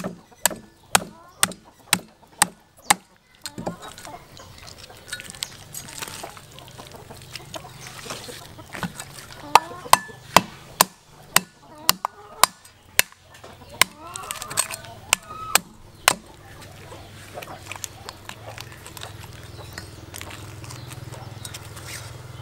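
Cleaver chopping through a large fish on a wooden cutting board: sharp, evenly spaced chops about two a second, coming in several runs with pauses between.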